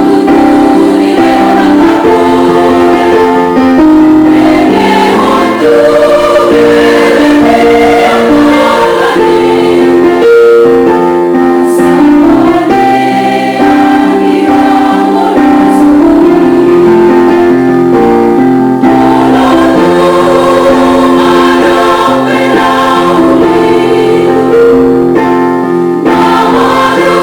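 Women's church choir singing a Batak hymn in several-part harmony, holding long chords that change every second or two.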